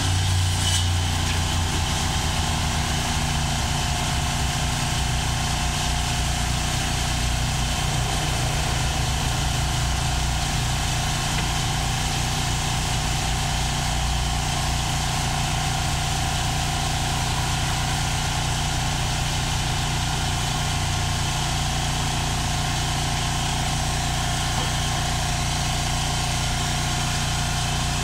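Engine of a portable band sawmill running steadily at idle while the blade is not cutting.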